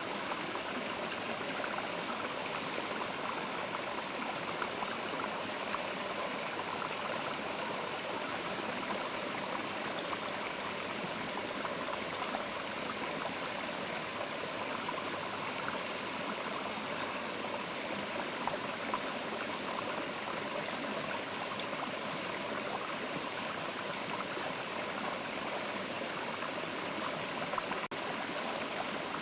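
Mountain river flowing steadily, a constant rushing of water. A faint high, thin tone joins in about two-thirds of the way through.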